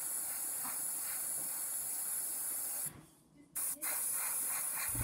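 Airbrush spraying paint: a steady airy hiss that breaks off for about half a second around three seconds in, then sprays again, with a small click just after it resumes.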